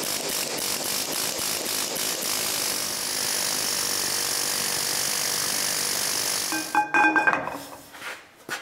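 A handheld pneumatic air tool runs steadily with a hiss against the seized top nut of a large hydraulic bottle jack, with a beat of about four strokes a second at first. It stops about seven seconds in, followed by a few ringing metallic clanks.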